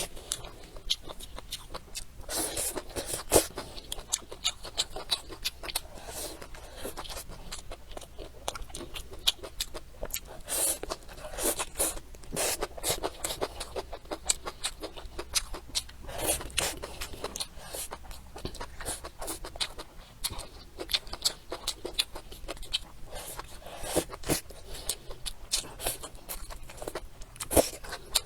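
Close-miked eating sounds: chewing with many sharp wet mouth clicks and crunches, coming irregularly and quickly.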